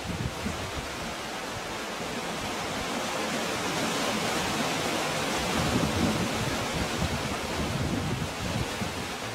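Sea surf washing into a narrow rocky cove: a steady rush of water that swells over the middle few seconds and eases near the end.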